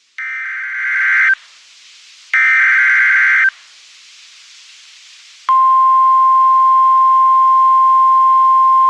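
NOAA Weather Radio emergency alert: two bursts of SAME digital header data, each a buzzy warbling screech about a second long, with radio hiss between them. About five and a half seconds in, the steady single-pitched 1050 Hz warning alarm tone starts and holds, signalling that a warning follows.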